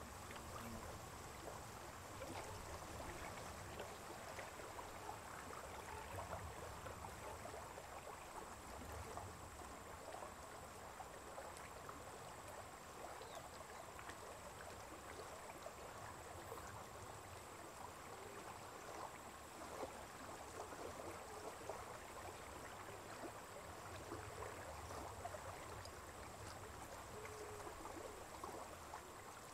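Faint, steady trickle and lap of shallow water at the lake's edge, with a fine flickering texture and no single event standing out.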